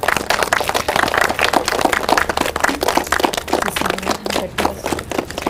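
A group of people clapping, a fast irregular patter of hand claps that thins out near the end.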